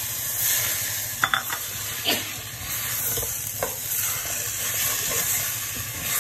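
Mutton pieces frying in masala in a stainless steel pot while a steel slotted spoon stirs them: a steady sizzle with the spoon clinking against the pot a few times.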